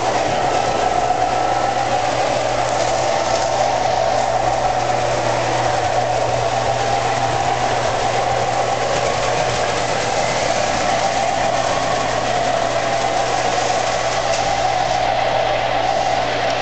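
Lionel O gauge model train running on Super O track: a steady whir of the electric motor and gears with the wheels rolling on the rails, over a steady low hum.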